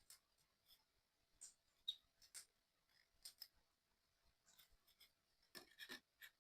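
Faint, irregular light clicks and scratches of small 3D puzzle kit pieces being handled and fitted together, with a quick cluster of clicks near the end.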